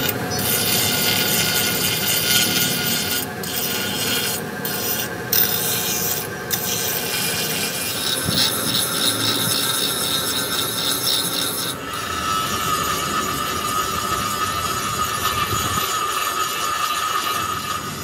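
Tools rasping and scraping on a cast-iron engine block, with several brief breaks in the first seven seconds. From about twelve seconds in, a steady high whine joins the scraping.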